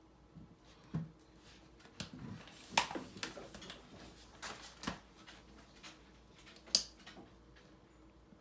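Fat-bike rubber inner tube being handled and flexed by hand, with rubbing and scattered knocks; the two sharpest knocks come about three seconds in and again near seven seconds.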